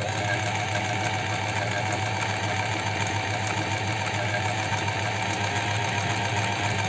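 Astralux M10 electric sewing machine running steadily, its motor humming and the needle mechanism working at an even speed. The machine is running normally after repair.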